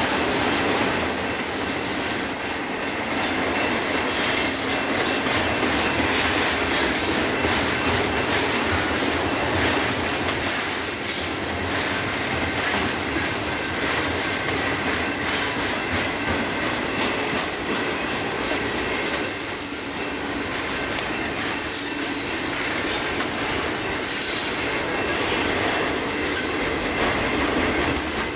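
Double-stack intermodal container train's well cars rolling past, a steady rumble of steel wheels on rail broken by repeated short spells of high-pitched wheel squeal.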